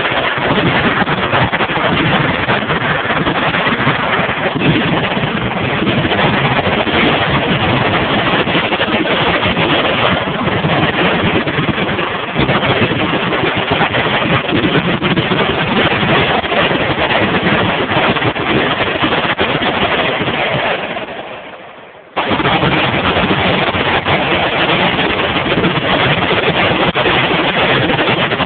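Many machine guns firing at once in overlapping automatic bursts, heard as a dense, unbroken, loud noise through a phone's microphone. It fades out about 21 seconds in and starts again abruptly a second later.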